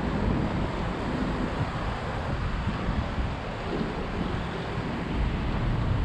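Wind buffeting the microphone in irregular gusts over a steady rush of sea surf.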